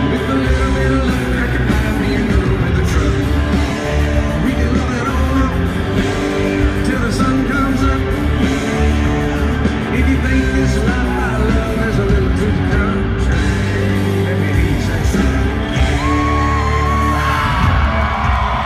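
Live country-rock band playing loud with a male lead vocal singing over it. Near the end the singer holds a long shouted note.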